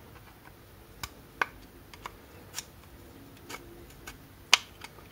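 About six scattered, sharp clicks and taps, the loudest near the end, as the plastic case of a replacement heater-control servo motor is pried open.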